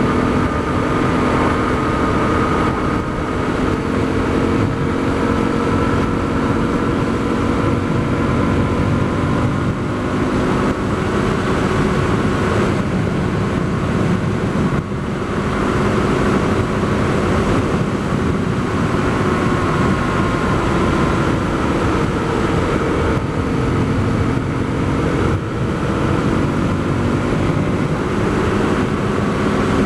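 Honda CRF250L's single-cylinder engine running through an FMF Q4 HEX slip-on muffler while riding at a steady pace, with wind rushing over the helmet microphone. The engine note drifts gently up and down, with a brief dip in level about halfway.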